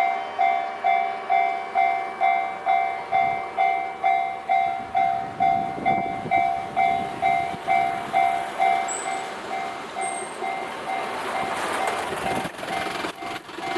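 Japanese level-crossing warning bell ringing steadily, about two dings a second. From about halfway through a train's rumbling rolling noise builds under it and grows louder near the end as the train reaches the crossing.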